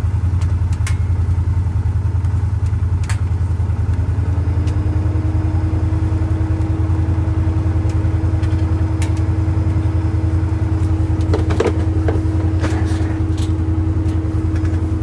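Can-Am Defender side-by-side's engine idling with a steady low hum. About four seconds in a higher steady whine comes in and holds, and a few clicks sound near the end.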